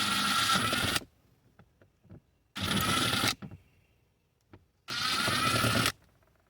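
Power tool with a 10 mm socket spinning a bolt out of the door trim, in three bursts of about a second each with short pauses between them.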